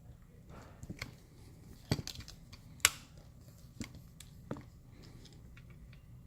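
Scattered sharp clicks and taps of small metal hardware being handled while a hinge, screw and leg are fitted together and a screw hole is lined up, with one louder click about three seconds in.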